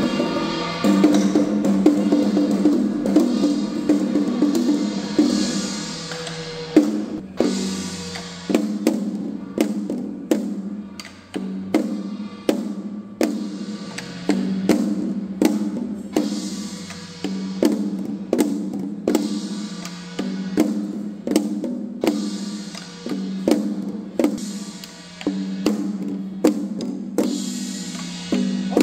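Ritual percussion music: held tones for the first six seconds or so, then a steady beat of struck drum and percussion, about one and a half strikes a second with some quick double hits, each briefly ringing over a held low tone.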